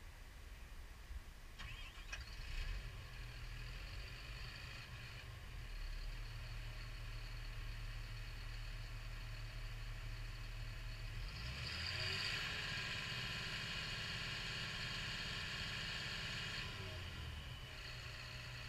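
Diesel engine of a CAT D6K2 bulldozer running at idle, then rising to a higher speed about eleven seconds in and holding there for several seconds before dropping back near the end.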